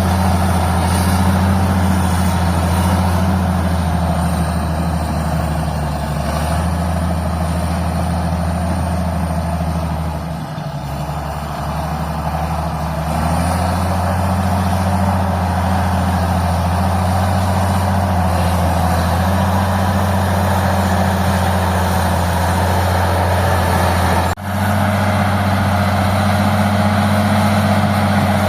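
Old Caterpillar D6 crawler tractor's diesel engine running with a deep, steady note. It eases off briefly about ten seconds in and then picks back up, and there is a sudden short break near the end.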